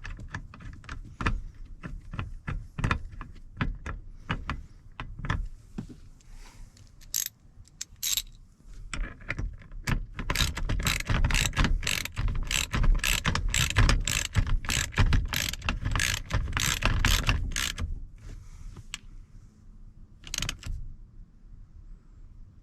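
Hand ratchet with a Torx T50 bit clicking in runs of quick clicks as it drives the seatbelt retractor's mounting bolt. The clicking is densest through the middle stretch and thins out near the end.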